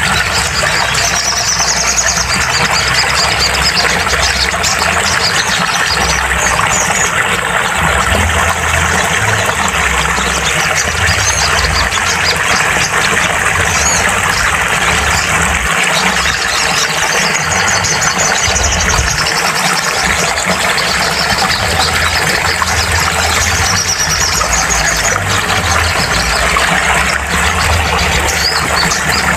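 Sogon (ruby-cheeked sunbird) song in rapid high trills that recur every few seconds over a loud, continuous dense hiss, played as a therapy track to get a silent caged sogon singing.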